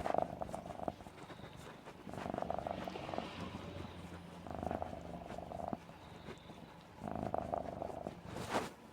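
Domestic cat purring close up, a continuous low rumble that swells in waves about every two and a half seconds.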